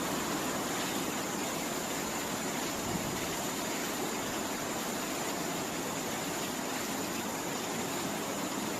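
Steady rush of water, an even noise without any rhythm, with a faint high steady tone running through it, fading out right at the end.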